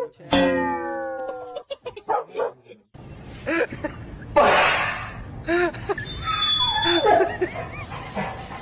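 A dog whining and barking in short cries, with a man's voice among them. Near the start there is a single long falling tone.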